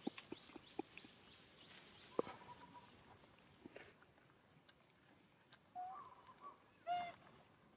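Long-tailed macaque giving short calls: two brief squeaks a little under six seconds in, then a louder, arched call near the end. Faint scattered clicks come early on.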